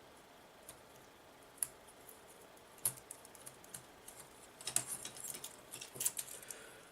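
Small hard clicks and taps of tiny drone frame parts and hardware being handled and fitted together by hand: a few single clicks, then a quicker cluster of clicks and rustling about five seconds in.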